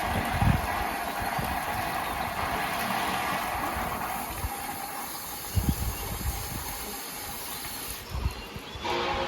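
Strong wind buffeting the microphone in irregular low rumbles over a steady hiss; the hiss cuts off suddenly about eight seconds in.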